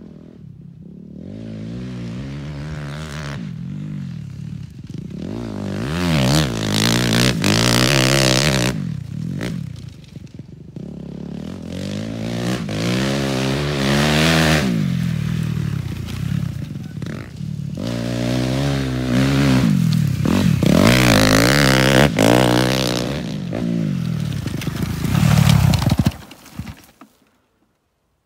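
Suzuki motocross bike's engine revving up and down through the gears as it is ridden around a field. It is loudest twice as the bike comes near, then the sound cuts off suddenly near the end.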